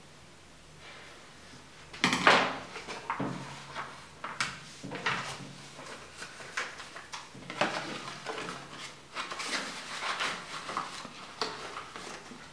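Sheets of paper being handled at a desk: irregular crinkles and rustles start about two seconds in and go on in uneven bursts. The loudest crackle comes right at that start.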